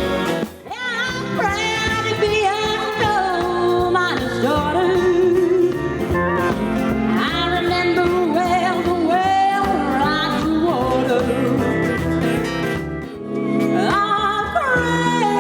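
Country song: a singer over band accompaniment, holding long notes with vibrato. The music drops briefly about half a second in and again near 13 seconds.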